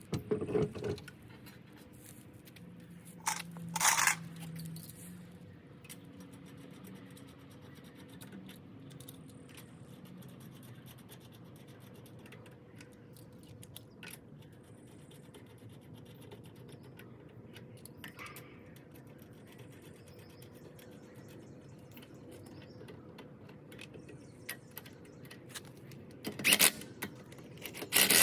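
A few sharp metallic knocks and scrapes from a car wheel being handled and mounted: one at the start, two about three to four seconds in, and several near the end, with a faint steady hum in between.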